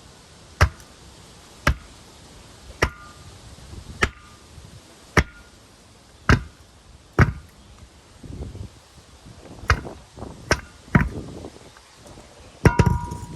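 Hammer blows on metal, about one a second, driving a differential bushing on a BMW E36 rear subframe; several strikes leave a short metallic ring, and a quick cluster of blows comes near the end.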